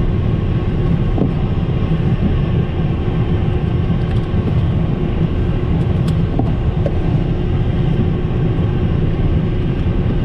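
Steady low rumble inside the cockpit of an Embraer Phenom 100 twin-turbofan light jet as it taxis, with faint steady engine tones over it.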